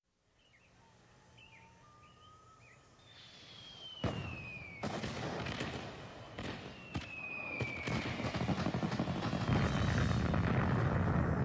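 Fireworks: faint chirps, then two long falling whistles, a run of sharp bangs and a dense crackle with a low rumble that grows steadily louder.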